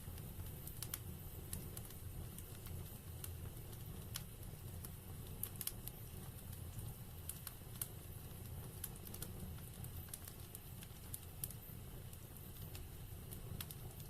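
Wood fire burning in a fireplace, with frequent irregular crackles and pops over a low steady rumble.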